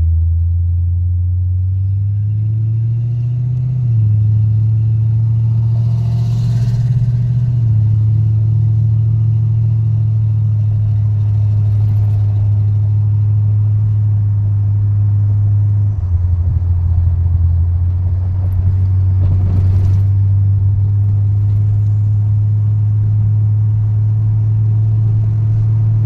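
1972 Pontiac Grand Prix's V8 engine running while cruising, heard from inside the car with the roof open: a steady low drone with road noise. Its pitch rises a few seconds in and shifts down again around the middle.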